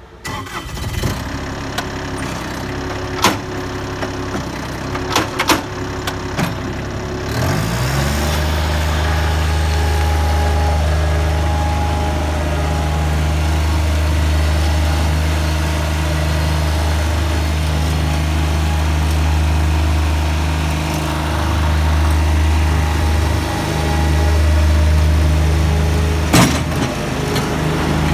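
Bobcat 463 skid-steer loader's diesel engine running, first at a low idle with a few sharp clanks, then throttled up about seven seconds in and running steadily at high revs as the loader drives, with brief dips in engine speed later on.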